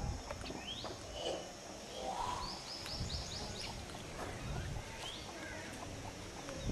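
Mynas calling at a tree-hole nest: scattered short rising chirps, with a quick run of about six high notes near the middle, over a low rumble.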